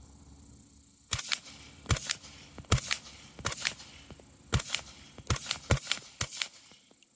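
Suppressed 300 Blackout AR rifle with a Gemtech Tracker 30-caliber suppressor firing eight shots, a half-second to a second apart, beginning about a second in.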